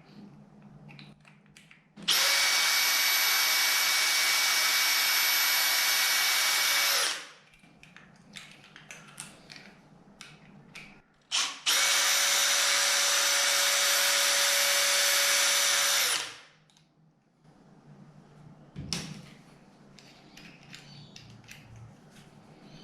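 Power drill run twice at a steady speed, about five seconds and then about four and a half seconds, undoing the two screws of a new door handle set. Small clicks and handling noises come before, between and after the two runs.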